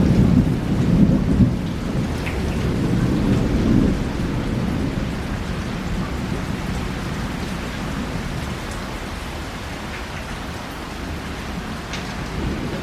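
Thunder rumbling low over heavy monsoon rain. The rumble is strongest in the first few seconds and dies away by about four seconds in, leaving steady, hard rainfall.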